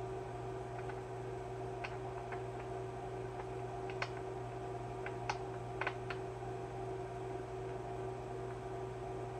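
A few light, sharp metal clicks, scattered and irregular, as a hand tool works on the engine of a chainsaw. They sit over a steady electrical hum.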